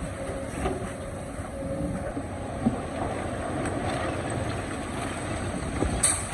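Excavator engine running steadily while digging rock, with a sharp knock about two and a half seconds in and a louder clatter near the end.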